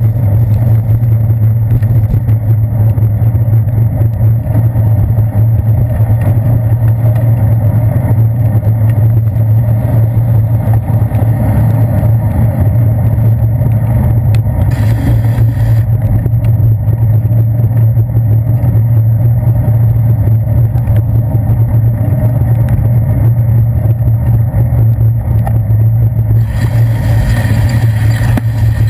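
Loud, steady low drone and road rumble from riding a bicycle on wet city streets, picked up through a handlebar-mounted GoPro Hero 2's waterproof housing. A brighter hiss joins near the end.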